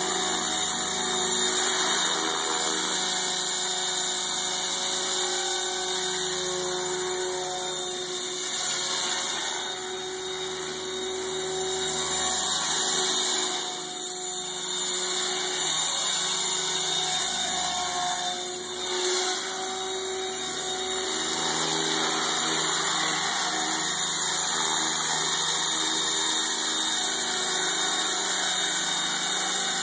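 Protos 500 electric RC helicopter in flight: the steady whine of its electric motor and drive gears, with the whoosh of the spinning rotor blades. The level dips a few times as it moves around.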